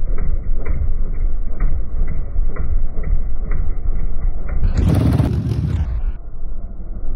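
Race quad (ATV) engine running at idle, a loud low rumble with a faint even tick about twice a second. About four and a half seconds in, a louder, harsher blast lasts about a second and a half.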